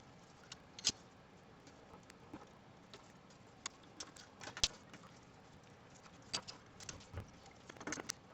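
Irregular light clicks and taps of hands handling the plastic and metal parts of a Glowforge laser cutter's gantry, the sharpest click about four and a half seconds in.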